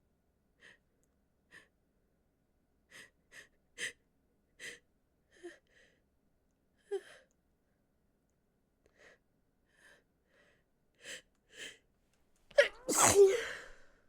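A woman with a head cold takes a string of short, catching breaths and sniffs, spaced out and building up over about twelve seconds, then sneezes loudly near the end.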